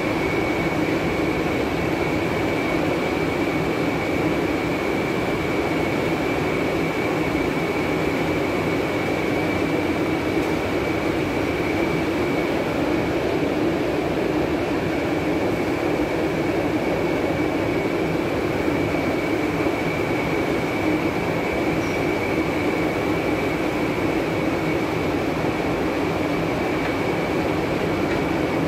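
Stone-slab processing machine running steadily: a constant mechanical drone with a steady high whine over it, unchanging throughout.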